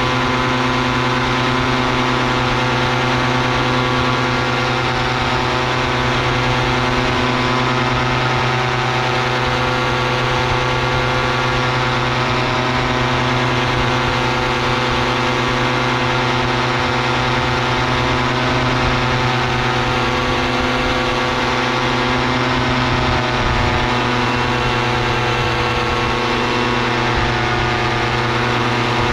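Paramotor engine and propeller running steadily in flight at a constant throttle, a continuous pitched drone over a hiss of rushing air.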